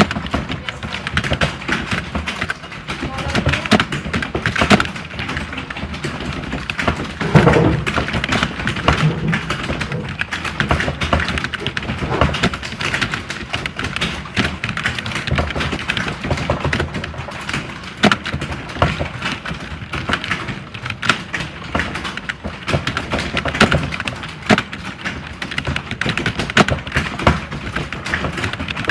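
Computer keyboards being typed on fast, a dense, unbroken clatter of keystrokes, with one brief louder thud about seven seconds in.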